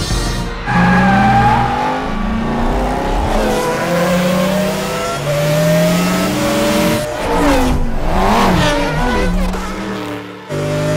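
A pack of race car engines launching from a standing start, revving and climbing in pitch through gear changes. Around two-thirds of the way through, cars sweep past with pitches gliding up and down.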